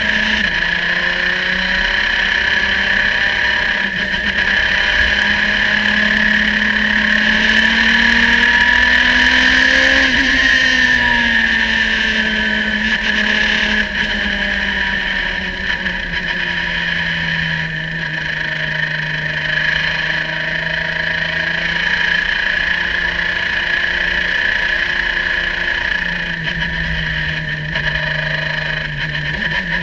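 Onboard sound of a Radical sports racing car's engine running at moderate revs in second and third gear, climbing gently to a peak about ten seconds in and then easing back. A steady high whine runs alongside it.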